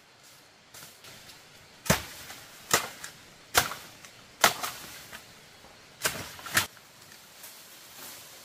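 Six sharp blows of a hand tool on bamboo: four evenly spaced less than a second apart, then a pause and two quick ones.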